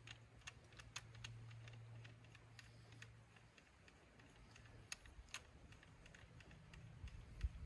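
Faint, scattered light clicks and ticks of a Microtech Defense Industries R2K9 9mm suppressor being threaded onto a pistol barrel, over a faint low hum that fades after a few seconds.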